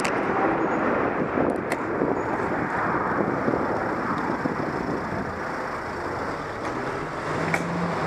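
Steady rushing wind and road noise from riding a bicycle in traffic, picked up by a head-mounted camera, with a few short sharp clicks.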